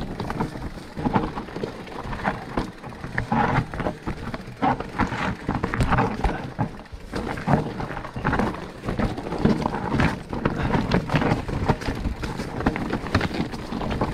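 Specialized Turbo Levo electric mountain bike descending a rough trail: a continuous clatter of tyres over loose stones and dry leaves, with many irregular knocks and rattles as the bike bumps over rocks.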